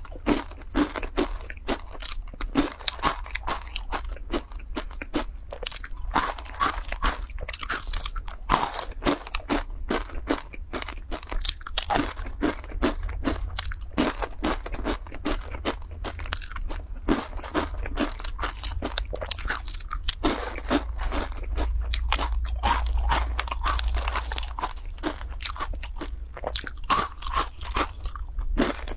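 Close-miked crunching and chewing of dry, crispy instant-noodle snack cubes: a dense run of many sharp crunches.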